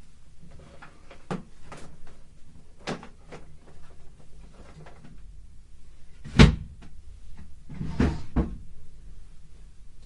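Cardboard boxes being handled during packing: a run of knocks and thumps, a few light ones at first, a heavy thump a little past the middle, then two more in quick succession.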